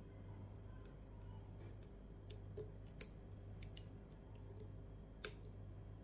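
Small sharp metallic clicks as a hook pick and tension wrench work the pins in a Mul-T-Lock padlock's core, nudging the pins up. The first two seconds are nearly still, then comes an irregular scatter of about eight clicks, loudest around three seconds in and again just after five.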